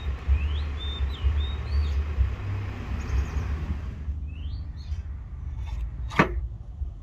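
Small birds chirping with short rising calls, over a steady low rumble. A single sharp knock about six seconds in.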